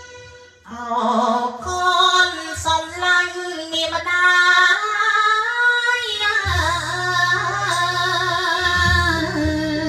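A man singing a song into a handheld microphone over an instrumental backing track. His voice comes in about a second in, after a brief gap in the accompaniment, and a bass line joins the backing over the second half.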